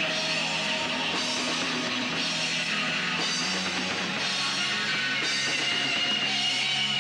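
Shoegaze band playing live: a dense, sustained wash of distorted electric guitars over bass and drums, with bright drum hits about once a second.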